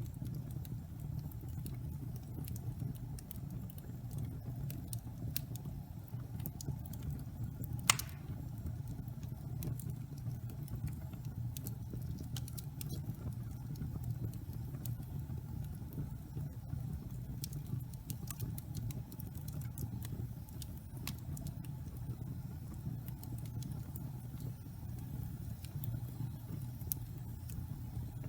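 Wood fire burning in a fireplace: a steady low rumble with scattered small crackles, and one loud pop about eight seconds in.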